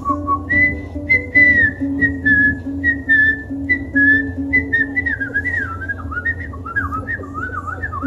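A person whistling a tune over ukulele accompaniment: held whistled notes at first, then quicker notes sliding up and down in the second half, with the ukulele played in a steady rhythm beneath.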